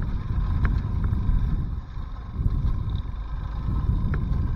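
Dual-sport motorcycle riding over a loose gravel and stone track: a low, uneven rumble of engine, tyres and wind buffeting the microphone, with a few short sharp ticks.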